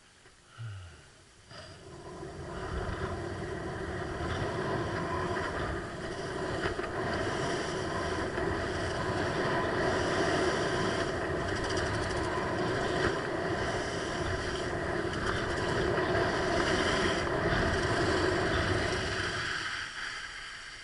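Steady rushing noise of skiing downhill: skis sliding over snow and wind on the microphone, building up about two seconds in and dying away near the end.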